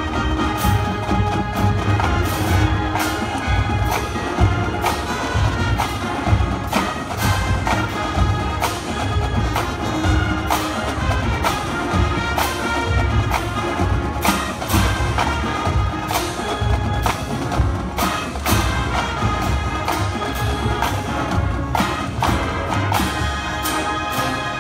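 Marching band playing: brass section and drumline, with a steady drum beat under sustained brass chords.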